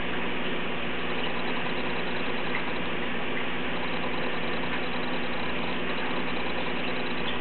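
Steady hum of an aquarium pump motor running, over an even hiss, with a few faint ticks.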